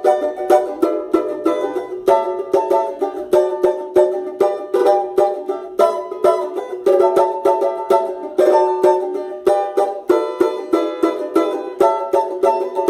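Banjo played solo: a steady stream of bright, sharply plucked notes, about three or four a second, with no bass or other instruments behind it.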